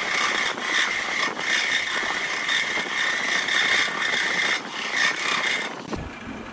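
A turning tool cutting into a wooden blank spinning on a wood lathe: a steady scraping hiss with a high whine that wavers as the tool bites. About six seconds in it cuts off abruptly and gives way to a low rumble.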